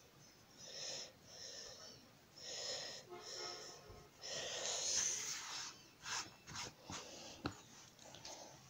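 A person breathing close to the microphone in soft, evenly paced puffs, some in pairs. Then light clicks and taps as a tuna can lined and lidded with pastry is handled and set down on a plastic cutting board, one sharp click standing out near the end.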